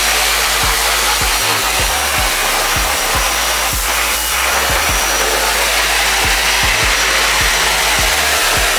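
High-pressure hose spraying water onto kennel crate trays: a loud, steady hiss.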